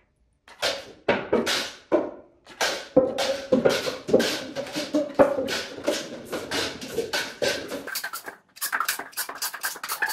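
A toy gun firing repeatedly at stacked paper cups, with the cups being hit and knocked down: a string of sharp hits and clatters, at first about two a second, then quicker, ending in a rapid run of clicks.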